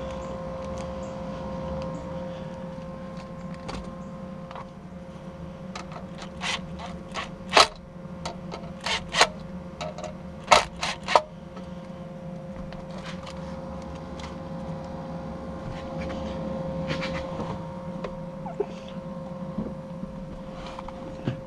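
Sharp metal clicks and knocks from screws and steel mounting brackets being fitted to a double-DIN car stereo with a cordless impact driver, clustered in the middle, over a steady hum.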